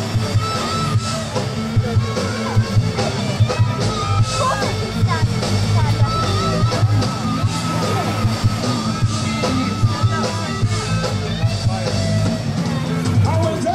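Loud rock-style music with a steady beat and a singing voice.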